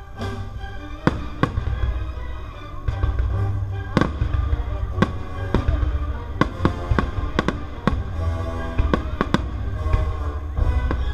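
Fireworks bursting, a dozen or more sharp bangs at irregular intervals, over orchestral music and a steady low rumble.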